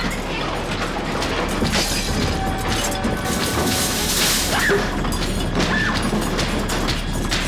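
Earthquake sound effects: a continuous heavy rumble with rattling and crashing of shaking objects.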